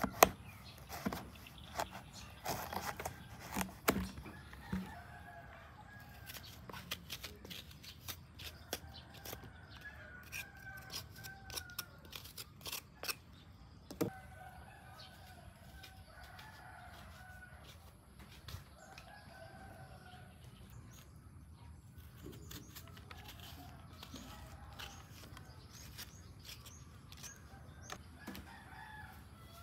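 Chickens calling, with a rooster crowing several times, each call lasting two to three seconds. Sharp clicks and knocks come often through the first half, the loudest right at the start and about four seconds in.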